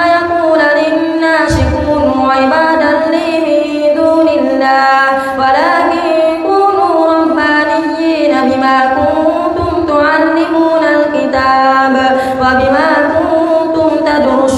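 An imam's melodic Quran recitation in Arabic during tarawih prayer. A single voice chants through a headset microphone in long drawn-out phrases, its pitch gliding up and down between short pauses.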